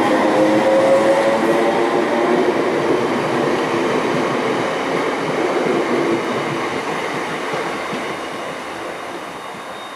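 London Overground Class 321 electric multiple unit moving past along the platform close by: train running noise with a steady whine from its motors that dies away about six seconds in, and the whole sound growing steadily quieter.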